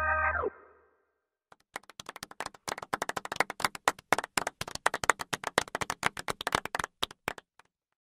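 Background music ends in a quick downward slide in pitch, then about a second later applause from several pairs of hands runs for about six seconds and stops abruptly.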